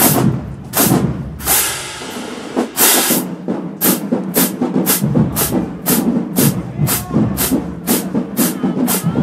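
HBCU marching band's drumline playing a marching cadence, with sharp crashing hits on a steady beat about two and a half times a second and a lower drum pulse underneath.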